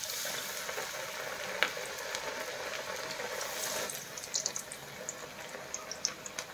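Batter-coated bread slices frying in hot oil in a kadhai: a steady sizzle with scattered crackles and pops, and one sharp tick about a second and a half in. The sizzle eases a little after about four seconds.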